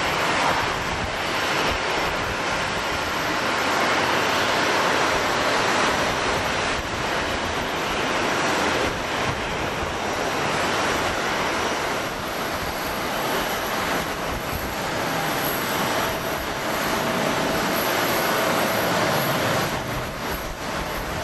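Jet engines of a taxiing Airbus A330 airliner: a steady rush of jet noise with a faint high whine.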